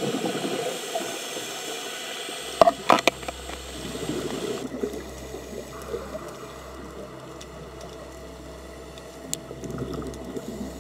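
Underwater water noise with bubbling, and a few sharp clicks about two and a half to three seconds in.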